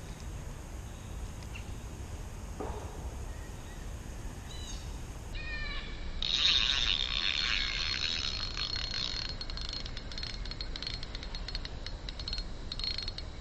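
Ultralight spinning reel being cranked to retrieve a lure: a fast, even whirring buzz of rapid ticks from the reel's gears. It starts suddenly about halfway in and runs on until near the end.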